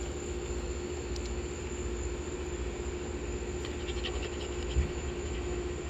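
Steady outdoor background: a low hum and a thin high steady tone over low rumbling noise, with a few faint clicks and a soft thump near the end.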